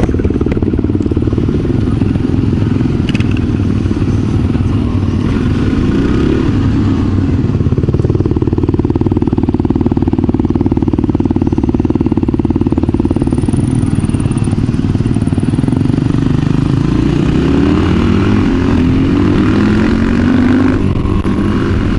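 Dual sport motorcycle engine running close to the microphone as the bike pulls away and rides off. Its pitch rises several times as it accelerates through the gears.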